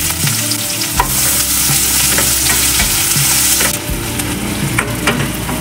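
Freshly added sliced onions sizzling in hot butter in a stainless steel pan, with a spatula scraping and clicking against the pan as they are stirred. The sizzle is loudest for the first three and a half seconds, then eases.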